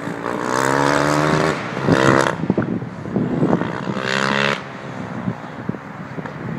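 Superkart's Yamaha YZ450F single-cylinder four-stroke engine running on track: its note sinks slightly, bursts louder briefly, is held again on the throttle, then drops away about four and a half seconds in.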